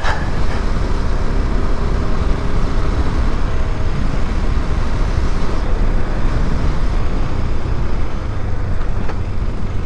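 A KTM 390 Adventure's single-cylinder engine running steadily at moderate road speed, with steady wind and road noise over it.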